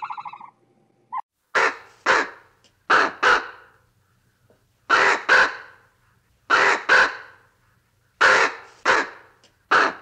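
Common raven calling: harsh caws given in pairs, six pairs spaced a second or two apart. A buzzy, pulsing tone fades out in the first half second.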